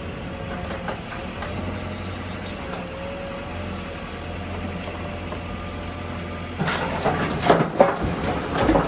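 JCB 3DX backhoe loader's diesel engine running steadily with a wavering whine. Near the end comes a run of loud, irregular clattering knocks.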